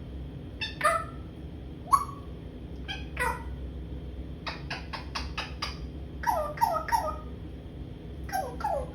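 Pet parrot calling in a string of short, pitched calls: single calls about one, two and three seconds in, then a quick run of about five, then two groups of three falling, meow-like calls.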